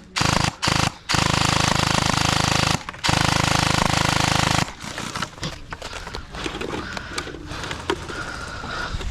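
Electric gel blaster firing on full auto in bursts: two short bursts in the first second, then two long bursts of about a second and a half each, with a steady mechanical buzz from the motor and gearbox. After about four and a half seconds the firing stops, leaving fainter rustling and scraping.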